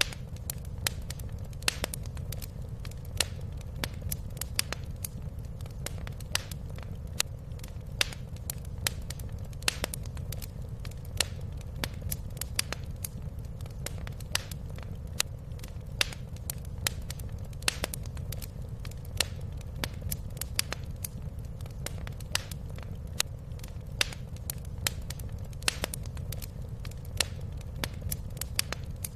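Wood fire crackling in a fireplace: irregular sharp pops and snaps, several a second, over a steady low rumble of the burning fire.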